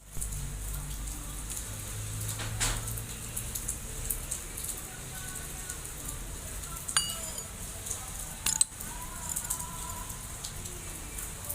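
Nissan ZD30 four-cylinder diesel engine running, with faint wavering squeaks from the belt tensioner pulley that needs lubricating, and a few sharp clicks.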